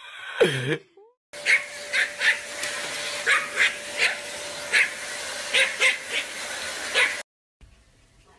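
Small dog, a Pomeranian, yapping in a dozen or so short, sharp barks at an uneven pace over a steady whirring noise with a faint hum; the yapping stops abruptly about seven seconds in. A brief falling moan comes just before it.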